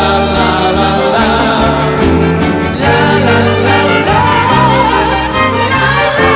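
Live rock band music: a full band with low bass notes and a lead melody that wavers up and down from about four seconds in.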